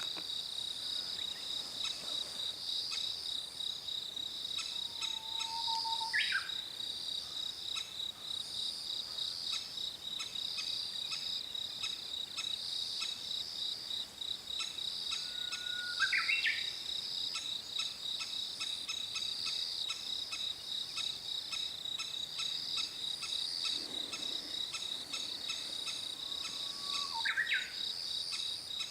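Three short calls of a crested kingfisher, about ten seconds apart, each a brief held note that jumps sharply up in pitch, over a steady, pulsing high drone of insects.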